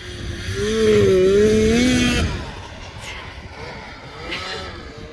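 Snowmobile engine revving as it drives close by, its pitch rising and falling, loudest from about half a second to two seconds in, then running on more faintly.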